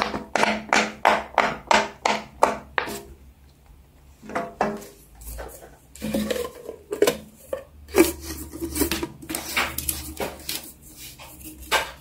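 Silicone pop-it fidget toy being pressed: a quick, even run of pops, about three a second, for the first few seconds, then scattered pops and handling clicks.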